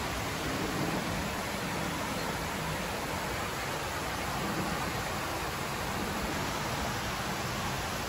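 Creek water pouring over a low concrete weir: a steady rushing that does not change.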